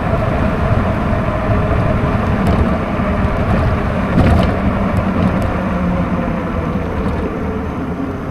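Steady road noise while riding an e-bike in the rain: rushing wind and tyres on a wet road, with a steady hum underneath.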